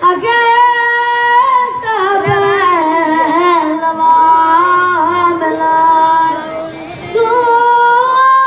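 A boy singing a devotional song to the Madonna dell'Arco into a handheld microphone. He holds long, wavering notes, with a brief pause about seven seconds in.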